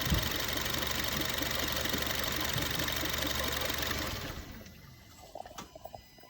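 Honda Freed engine running with a fast ticking clatter, suspected by the owner of being an abnormal engine noise, then switched off about four seconds in, the sound dying away within half a second. A few faint clicks follow.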